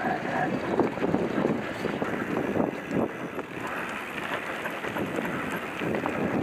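Mountain bike rolling along a dirt forest singletrack: tyre noise on the trail with frequent small knocks and rattles from the bike, and wind buffeting the helmet-mounted microphone.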